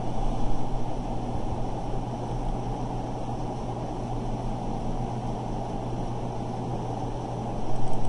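Steady low electrical hum with hiss: the background noise of the recording setup, with a slight swell near the end.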